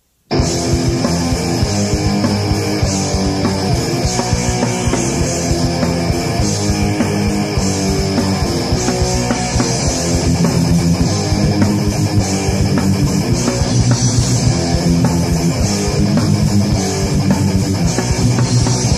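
Recorded punk rock with heavily distorted electric guitars, bass and fast drumming. It starts abruptly out of silence a moment in and then holds at a steady loud level.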